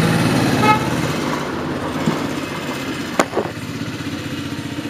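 An engine running steadily with a pulsing low rumble. A brief high beep sounds under a second in, and two sharp clicks come about three seconds in.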